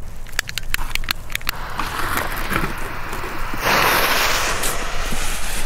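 Fuse of a Funke Nishiki Kamuro fireworks battery being lit: a quick run of sharp clicks in the first second and a half, then a hissing, crackling burn that swells about three and a half seconds in as the fuse catches and sprays sparks.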